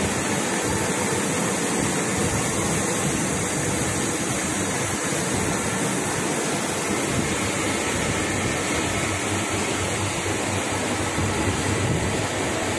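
Metal spray gun hissing steadily, a loud, even rushing jet as stainless steel is sprayed onto the shaft.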